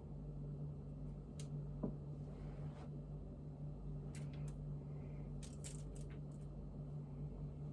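Light clicks and taps of food and packaging being handled, with one sharper knock about two seconds in, over a steady low electrical hum.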